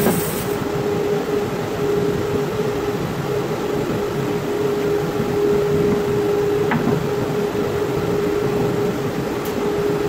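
Grizzly G0513X2BF 17-inch bandsaw finishing its cut through a box elder log about half a second in, the hiss of the blade in the wood stopping, then running free with a steady hum.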